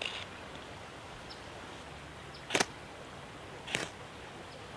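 Two quick, sharp scrapes of a knife along a ferro rod, a little over a second apart, the first the louder, striking sparks into tinder to light a fire.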